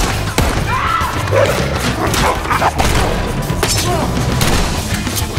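Action-movie gunfight sound: repeated gunshots, thuds and crashes over driving background music, with a few shouted voices in the middle.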